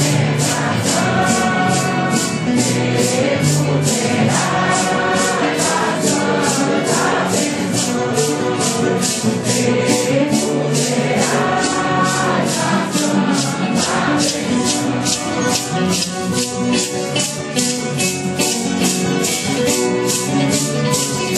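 A Santo Daime hymn sung in chorus by a congregation, over maracas shaken in a steady beat of about two and a half strokes a second.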